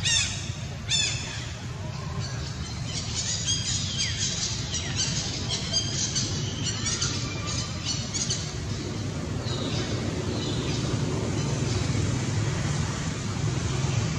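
High-pitched animal calls, each falling in pitch: two loud ones right at the start, a run of shorter calls over the next several seconds, and a few fainter ones later, over a steady low rumble.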